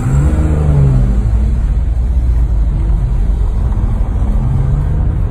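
Ferrari 599 GTZ Nibbio Zagato's V12 engine heard from inside the cabin while driving, its note climbing in the first second, then running steadily.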